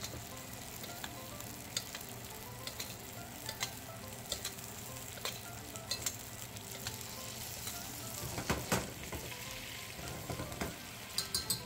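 Chuck eye steak sizzling in a pan of bubbling butter with garlic and herbs while being butter-basted: a steady sizzle with scattered pops and crackles, a louder burst of spatter about eight and a half seconds in, and a few sharp clicks near the end.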